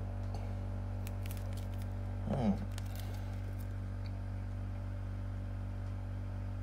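Faint clicks and rubbing of hands handling a retail box as it is turned over, over a low steady hum. A short murmured voice sound comes about two and a half seconds in.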